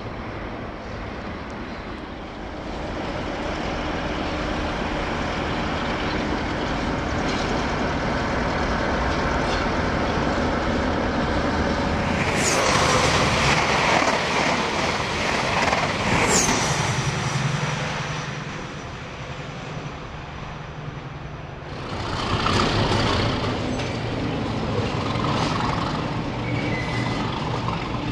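Trains moving through a station: the steady running and rumble of rail vehicles, with a louder rush of a passenger train passing the platform for about four seconds in the middle that starts and stops abruptly, and a diesel locomotive's engine near the end.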